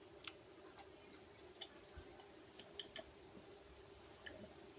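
Near silence with faint, scattered mouth clicks and smacks from chewing and eating rice by hand, over a faint steady hum.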